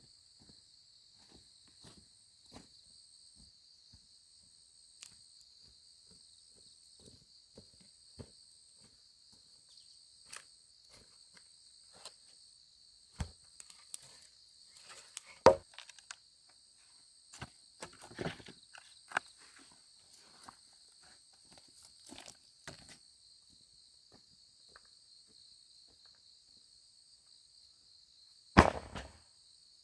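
Scattered footsteps, knocks and rustles of someone moving and handling things on the forest floor, with a sharp thud about halfway through and a louder thud near the end. A steady chorus of insects, likely crickets, shrills in the background throughout.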